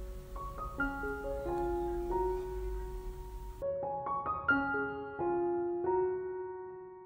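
Soft background piano music: a slow melody of single sustained notes. A low background hum and hiss drop out about halfway through.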